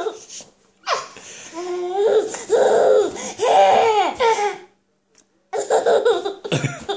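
Baby laughing in a run of belly laughs, breaking off for a moment about two-thirds of the way through.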